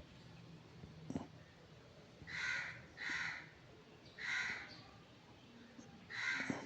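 A crow cawing four times, harsh calls of about half a second each, the last two spaced further apart.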